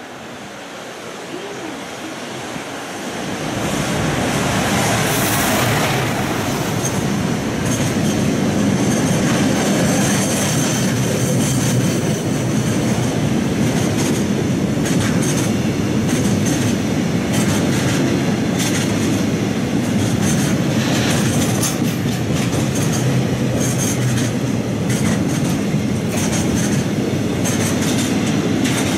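A JR Freight EF210 electric locomotive hauling a long freight train of tank wagons passes through a station at speed. The rumble builds over the first four seconds as the locomotive arrives, then holds as a steady loud clatter of wheels over the rail joints while the tank cars go by.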